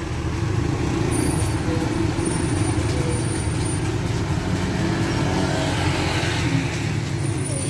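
Tour bus's diesel engine running steadily as the bus pulls away, a loud low engine note that rises and falls slightly in pitch.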